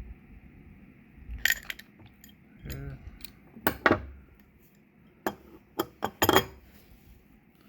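A series of sharp metal clinks and knocks, about eight in small groups, from metal pipe fittings and tools being handled.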